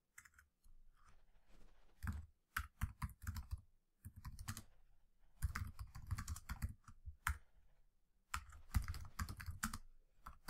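Typing on a computer keyboard: several quick runs of keystrokes with short pauses between them.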